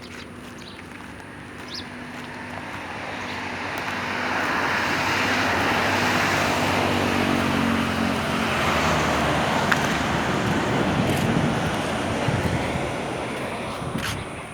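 A motor vehicle passing on a road, its engine and tyre noise swelling over several seconds and then fading away.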